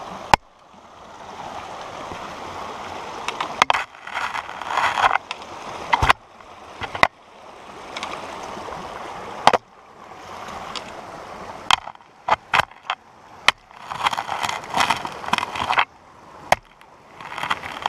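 A small mountain creek running over rocks, a steady hiss of flowing water. It is broken by bursts of footsteps crunching on dry forest floor and by several sudden knocks and cut-offs.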